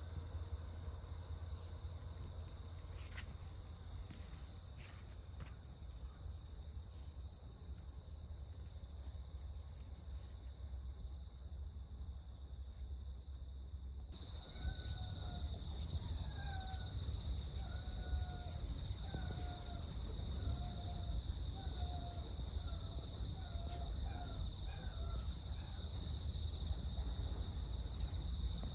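Quiet background ambience: a steady low rumble under a steady high, faintly pulsing drone. About halfway through the sound shifts, and a series of about a dozen short chirps comes in, roughly one a second.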